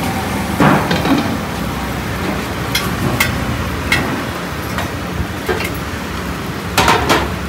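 Water sizzling and hissing on a hot dosa griddle as it is sprinkled over the cooking dosas, raising steam. Several sharp clinks cut through it, with a quick cluster near the end.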